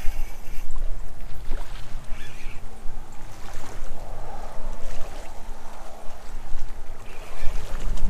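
Wind buffeting the microphone in uneven gusts, over a steady rush of river water.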